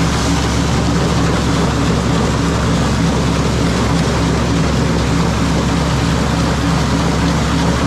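International 1256 tractor's diesel engine running steadily under load, driving an Artsway grinder-mixer, with the machine's mechanical noise over the engine's low, even hum.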